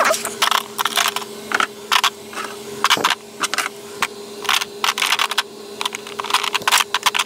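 Irregular clicks, clacks and rustles of makeup bottles and tubes being handled in a clear plastic drawer organizer, over a steady low hum.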